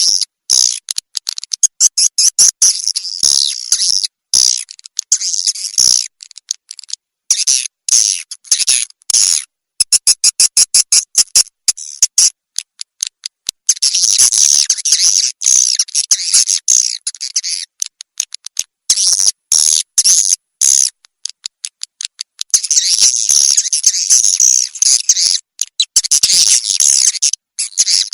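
Swiftlet lure call recording: rapid, high-pitched swiftlet chirps and twitters in runs that break off abruptly into short gaps. This is the calling sound played to draw edible-nest swiftlets into a nesting house.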